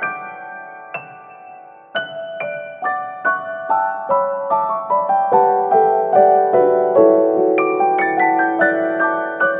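Background music: a gentle piano piece of single struck notes. It slows to one fading note about a second in, then picks up again at an even pace of two or three notes a second.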